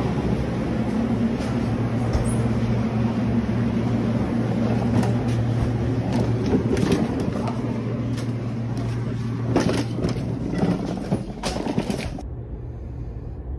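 Steady, loud machinery drone with a low electrical hum, with scattered knocks and rattles from an oxy-acetylene torch kit being carried. The drone cuts off abruptly near the end.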